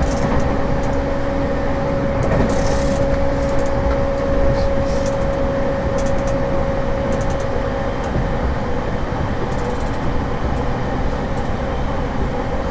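Running noise inside a JR East E231-1000 series electric train car at speed: a continuous rumble with a steady whine that weakens about eight seconds in, and occasional sharp clicks.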